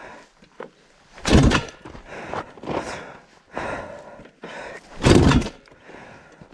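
Two heavy kick-start strokes on a Zabel 700cc single-cylinder two-stroke dirt bike, about four seconds apart, each a short thump as the big single is kicked over; the engine does not catch and run.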